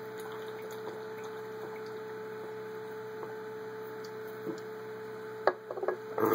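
Someone drinking from a can in long swallows, faint over a steady electrical hum, with a sharp click and a few smaller ones near the end.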